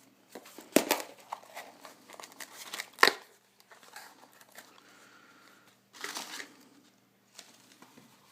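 Packaging being handled and opened: crinkling and rustling, with two sharp, loud sounds about one and three seconds in, and a further burst of rustling near six seconds.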